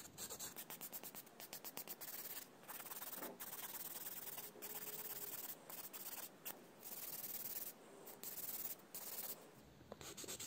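Hand nail file rasping back and forth over the surface of a cured acrygel nail, shaping it: quick short strokes at first, then longer strokes with brief pauses.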